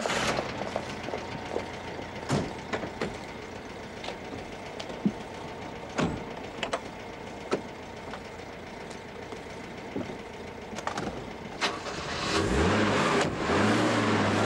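Scattered knocks and clicks, among them a car door being opened. About twelve seconds in, a car engine starts with a rising note and then runs steadily.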